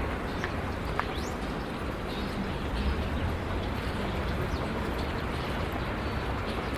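City park ambience: a steady low rumble of distant traffic, with a few brief, faint bird chirps above it.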